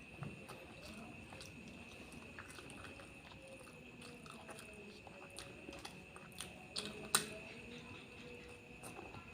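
A person chewing and eating with close-up mouth sounds: a string of small wet clicks and smacks, the sharpest about seven seconds in. A steady high-pitched tone hums underneath throughout.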